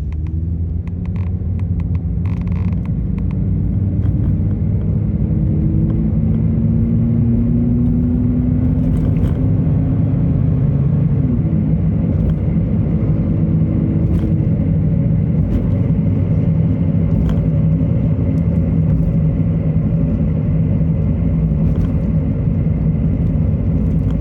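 Subaru Traviq (Opel Zafira) on the move, with a steady low droning rumble from a damaged wheel hub bearing. The sound builds over the first few seconds and then holds, with a faint rising tone early on.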